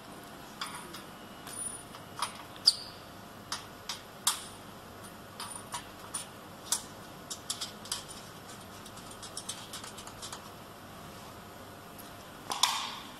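Irregular clicks, taps and rattles of cable plugs being handled and fitted into sockets on the sheet-metal cabinet of a laser marking machine, with a louder clatter near the end.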